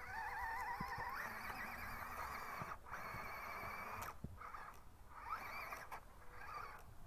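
Radio-controlled car motor whining, its pitch wavering up and down with the throttle and cutting out briefly a couple of times.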